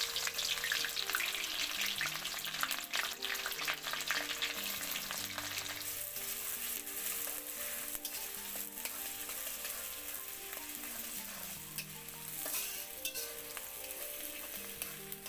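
Sliced onions sizzling loudly in hot soybean oil in a karahi, with the scrape and frequent clicks of a spatula stirring them through the pan. The sizzle is fiercest just after the onions go in and eases a little later on.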